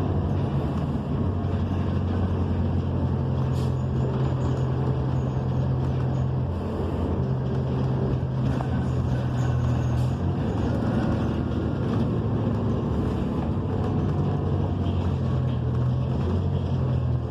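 A New Flyer XN40 city bus under way, heard from inside the cabin: its Cummins Westport ISL G natural-gas engine drones steadily under road noise, with the engine note shifting a few times as the bus changes speed. There are a couple of brief rattles, about 3.5 and 10 seconds in.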